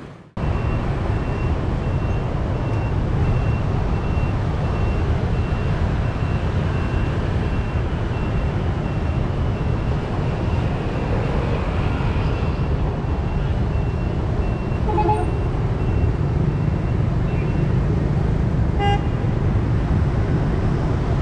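City street traffic: motorbikes and cars passing with a steady rumble, and a repeating high beep for most of the time. Two short horn toots sound about 15 and 19 seconds in.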